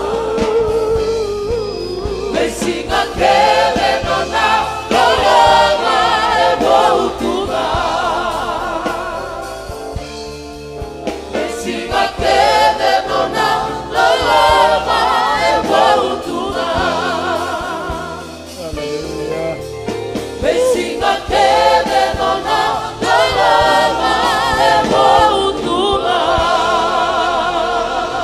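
Gospel worship team singing together in harmony, several women's voices and a man's voice, over live electric keyboard accompaniment. The sung phrases are held with vibrato, and there are short breaks between lines.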